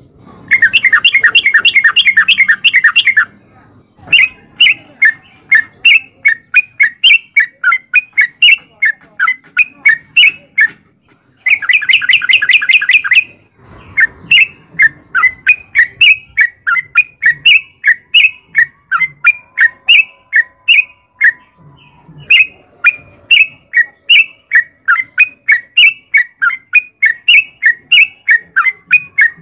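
Yellow-vented bulbul (trucukan) singing: a run of bubbly chirps, about two to three a second, broken twice by a fast rattling trill lasting a few seconds, once at the start and once just before halfway.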